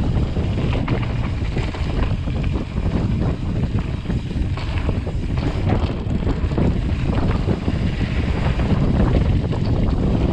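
Wind rushing over a GoPro head camera's microphone during a fast mountain-bike descent on a dirt trail, with the tyres rumbling and the bike clattering over bumps.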